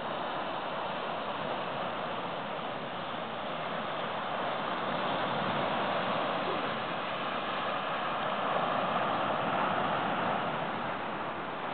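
Ocean surf washing onto a sandy beach: a steady rushing hiss that swells over several seconds in the middle and eases slightly near the end.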